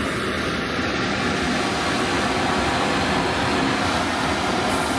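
Steady roar of the Dragon Bridge's large flame jet breathing fire, a continuous rushing blast with no break.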